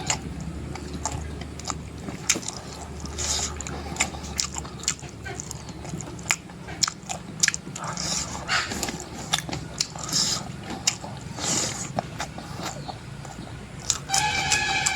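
Close-up eating sounds of a person chewing and biting spicy mutton curry: many short wet mouth clicks and smacks, mixed with brief hissing sounds. A pitched call with a steady tone comes in near the end.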